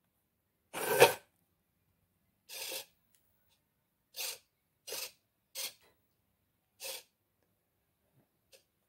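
Small RC micro servos whirring in short bursts as the animatronic's doors open and its eyes move: about seven brief whirs, the loudest about a second in, then a run of quick ones in the middle.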